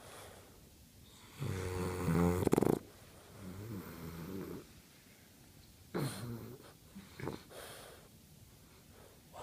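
A sleeping pet snoring: a loud, pitched snore about a second and a half in, then several softer snores a couple of seconds apart.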